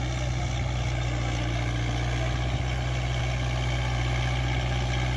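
Kubota MU4501 tractor's 45 hp four-cylinder diesel engine running steadily at low speed.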